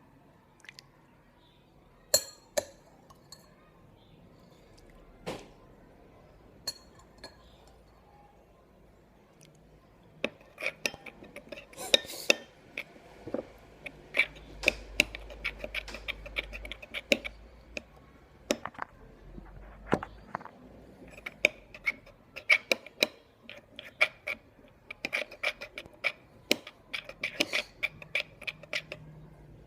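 A utensil clinking and scraping against a bowl while slime is mixed. There are a few scattered taps at first, then from about ten seconds in a steady run of quick clinks.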